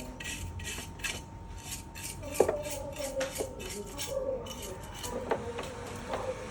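Metal tools and engine parts clinking and clattering as they are handled, with sharp clinks about two and a half and five seconds in. A rhythmic high ticking, likely the tail of background music, runs under it and stops about two-thirds of the way through.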